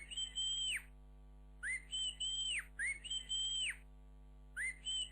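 A human whistle sound effect: four two-note whistles, each a short lower note leaping up to a longer high held note that falls away at the end.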